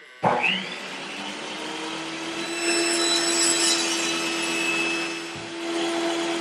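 Sound effect of a circular saw: a sudden start about a quarter-second in, then the blade running with a steady hum. It gets louder in the middle as it cuts through a log.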